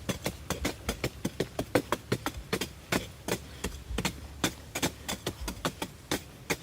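Rapid, even strikes of a hand tool, about four or five a second, each a sharp knock.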